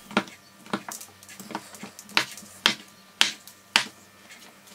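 Kitchen knife cutting through a block of kaşar cheese and tapping down onto a cutting board: a series of sharp clicks, about two a second.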